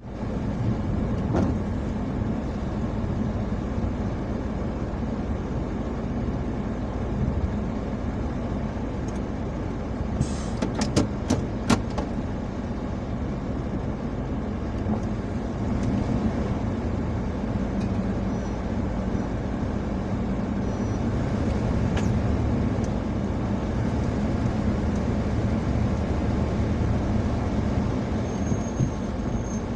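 Pouring rain falling on a car, heard from inside the cabin over the running engine as a steady noise. A few sharp clicks come about ten to twelve seconds in.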